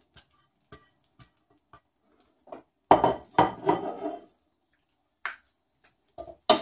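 Kitchen tongs tapping and clattering against a ceramic baking dish while moving roasted meat. There are scattered light clicks, a louder clatter lasting about a second starting about three seconds in, and a sharp click near the end.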